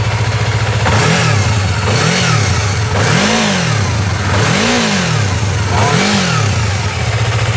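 Yamaha MT-03's two-cylinder engine, still cold, idling and then given five light throttle blips in a row, each a quick rise and fall in pitch, before settling back to idle near the end. The uploader presents it as the engine's normal running sound.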